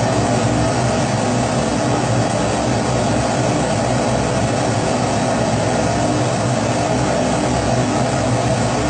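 Pressurized kerosene stove (Primus-type 'babour') burner burning at full flame: a steady, unbroken rushing sound with a low hum underneath.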